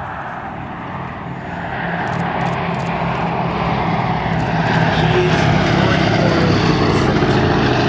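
Boeing B-17 Flying Fortress's four radial piston engines droning as the bomber flies past, growing steadily louder over the first five seconds as it approaches, then holding loud.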